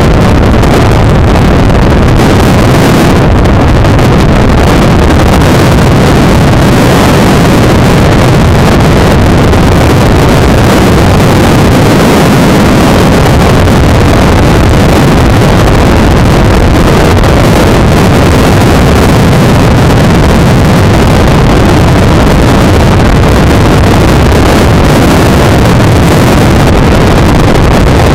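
Freefall wind rushing over a skydiver's helmet-mounted camera microphone: a loud, steady rush of noise that barely varies.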